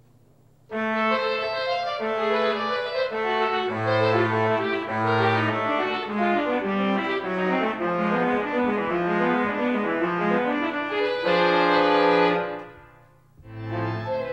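Pipe organ playing a slow passage of sustained chords with a few low bass notes. It starts about a second in, ends on a held chord that stops and dies away after about twelve seconds, and starts again near the end.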